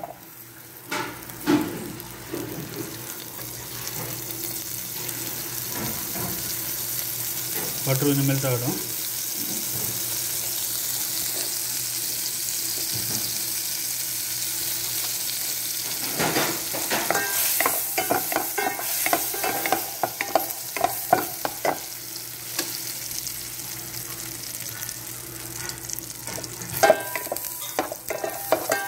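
Butter melting and sizzling in a hot pan, an even hiss that builds over the first few seconds and then holds. A wooden spoon scrapes and stirs it in bursts of strokes, mostly in the second half.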